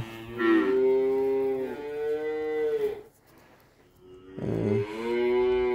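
Cattle mooing: two long calls, the second starting about four and a half seconds in, each sliding down in pitch at its end.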